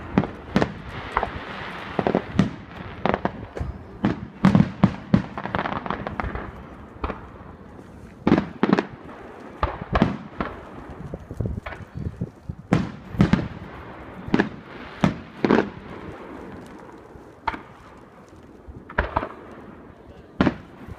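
Fireworks going off: a rapid, irregular string of sharp bangs and booms of varying loudness over continuous crackling.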